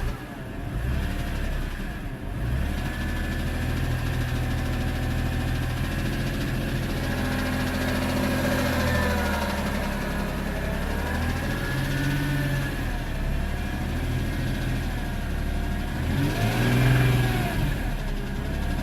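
BMW E46 M3's S54 straight-six engine idling and revved briefly about three times, with a knocking noise that the owner suspects is rod knock.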